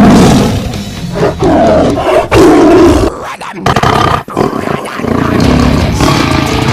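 Tiger roaring over and over, the first roar starting suddenly and loudly, with a short break about three seconds in before the roars go on.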